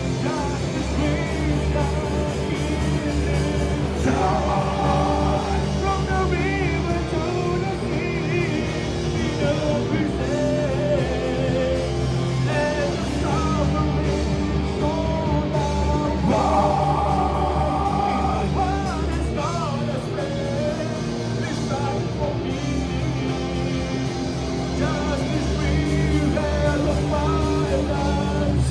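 Live rock band playing loudly, with guitars, bass and drums under a lead line that bends and wavers in pitch.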